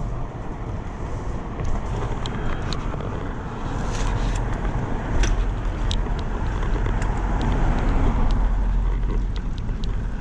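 Bicycle riding noise: a steady low wind and road rumble, with scattered light clicks and rattles that the rider traces to the rear luggage rack, though he found nothing loose on it.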